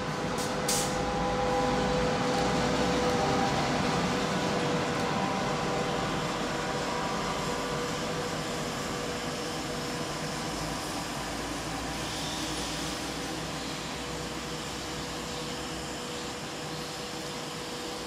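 SS8 electric locomotive hauling passenger coaches past: a steady rushing train noise with a faint held hum, loudest a few seconds in and slowly fading as the train draws away. Two short clicks about half a second in.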